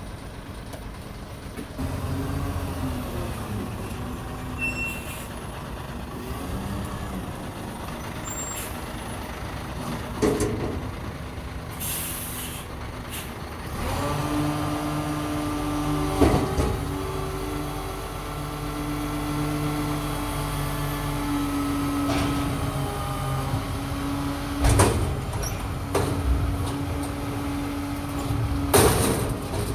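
Rubbish truck at work: its diesel engine running, the note rising to a steady whine about halfway through, with several sharp air-brake hisses and bangs.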